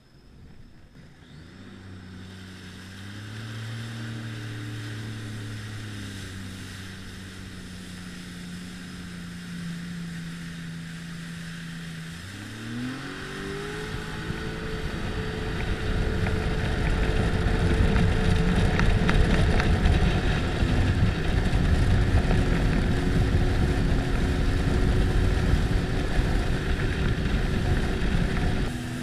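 Sea-Doo personal watercraft engine running at low throttle, then about twelve seconds in its pitch climbs as the throttle opens. It settles into a steady higher speed under a loud rushing noise of the hull moving over the water.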